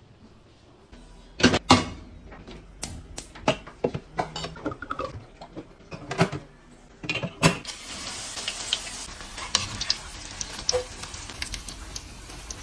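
Kitchenware clinking and knocking a few times, then, from about halfway in, breaded cauliflower florets deep-frying in oil in a wok: a steady sizzle with small crackles.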